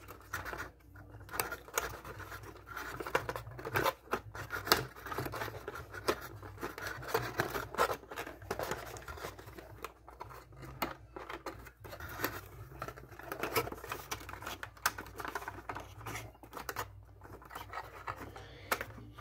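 Twist ties being worked off plastic model-kit parts by hand: a run of scratchy rustling with many small sharp clicks.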